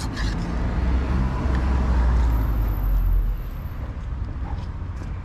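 Low rumble of a passing motor vehicle, swelling over the first three seconds and falling away a little after three seconds in.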